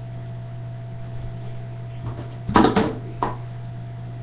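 A steady low electrical-sounding hum, broken about two and a half seconds in by a short clatter of sharp knocks and then a single click.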